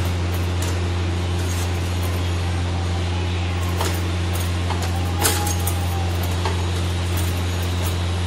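A steady low hum runs throughout, with occasional light clinks and taps of kitchen utensils, the loudest about five seconds in.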